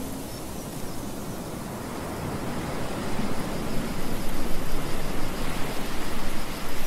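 Ocean surf breaking on a sandy beach: a steady rushing wash that swells louder about two seconds in.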